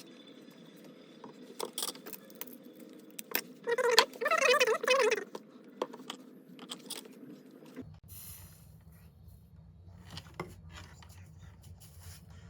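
Light clicks and knocks of small parts and wires being handled during the battery rewiring of a Bluetooth speaker, with a short burst of voice about four seconds in.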